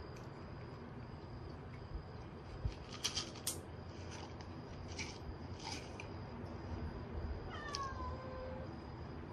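A kitten meows once near the end, a single call that falls in pitch. Earlier, a few short sharp clicks and scratches.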